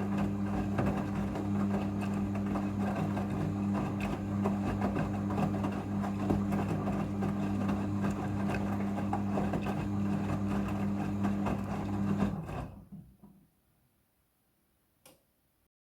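Front-loading washing machine running its rinse cycle: a steady motor hum under an irregular clatter of the tumbling drum. The sound dies away about twelve seconds in, leaving a single short click near the end.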